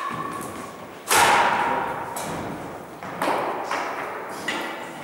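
Badminton rally: a racket strikes the shuttlecock several times, each a sharp knock that echoes around the gym hall, the loudest about a second in.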